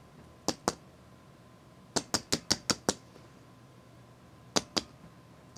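Ten short, sharp clicks: a pair about half a second in, a quick run of six around two to three seconds in, and another pair near the end.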